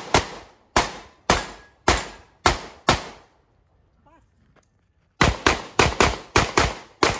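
Pistol gunfire during a practical-shooting stage: a string of shots about half a second apart, a pause of about two seconds while the shooter moves to the next position, then a faster string of shots, mostly in quick pairs. Each shot is sharp with a short echo.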